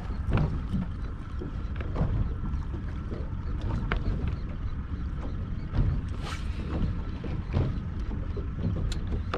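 Wind buffeting the microphone over water slapping against a small boat's hull, with scattered sharp clicks and knocks. A brief hiss comes about six seconds in.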